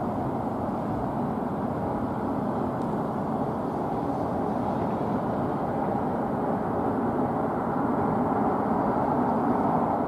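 Steady, even rumble of distant city traffic, with no bird calls or other distinct sounds standing out.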